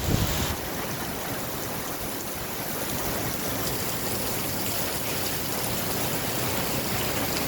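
Heavy rain pouring down steadily as an even hiss, with a short low thud right at the start.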